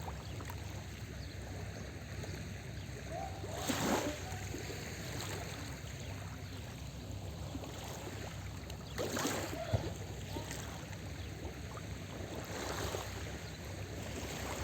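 Small sea waves washing onto the beach, one about every four to five seconds, over a steady low rumble. The surges about 4 and 9 seconds in are the loudest, and a weaker one comes near the end.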